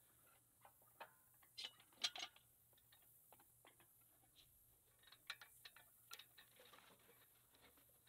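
Near silence broken by faint, scattered clicks and clinks, the loudest about two seconds in, from an engine hoist's lifting strap and hook chain being handled.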